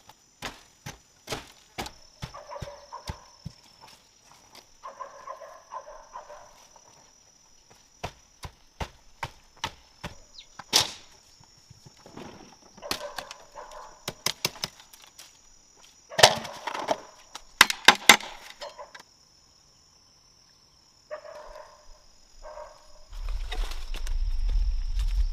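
Bamboo being worked by hand: irregular sharp knocks and cracks, loudest in two dense clusters past the middle, over a steady high insect drone. A low rumble comes in near the end.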